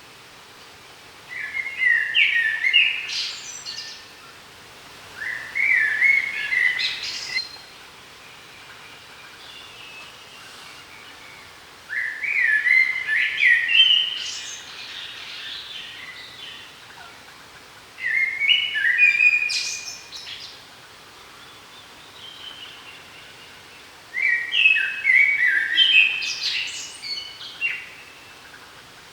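A songbird singing five separate phrases, about one every six seconds, each a quick run of notes ending in a higher flourish, over a faint steady background hiss.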